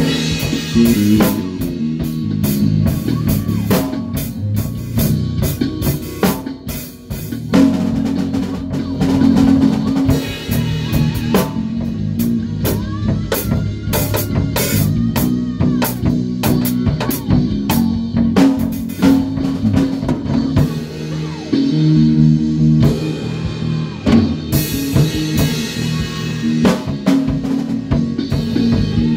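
A band playing a song at rehearsal: a drum kit keeping a steady beat with snare and cymbal hits over a bass guitar line.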